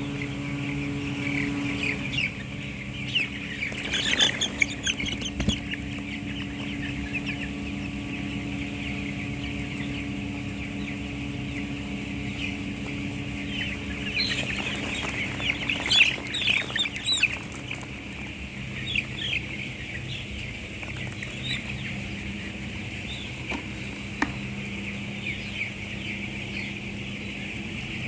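A flock of chicks peeping continuously, with louder flurries of peeps about four seconds in and again around the middle. A steady low hum runs underneath.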